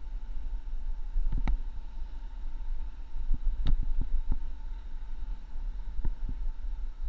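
Low wind rumble on a moving camera's microphone with a faint steady hum. Sharp knocks come through it: a close pair about a second and a half in, a quick cluster between three and a half and four and a half seconds, and two more near the end.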